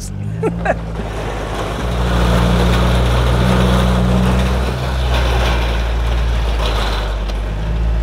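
John Deere Gator XUV 825i utility vehicle's three-cylinder gasoline engine running steadily as it drives towing the coop. A rushing gravel noise from the tyres and the dragged coop grows louder about two seconds in.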